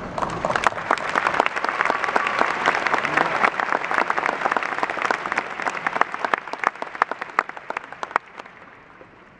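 Audience applauding: a dense round of clapping that holds strong for several seconds, then thins to a few scattered claps and dies out near the end.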